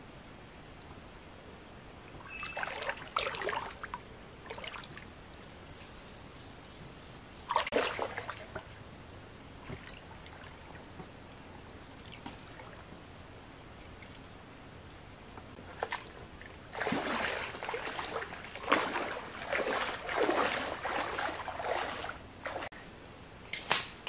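Water splashing and sloshing in a few short bursts, then a longer stretch of splashing in the last third.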